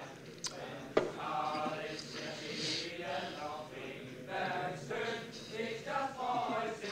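Indistinct male voices of a tavern crowd, talking and half-singing in the background. A sharp knock sounds about a second in.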